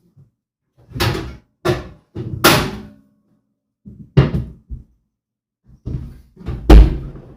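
A string of short knocks and thuds from kitchen handling, such as cupboard doors and utensils being set down on the counter. The loudest and deepest thud comes near the end.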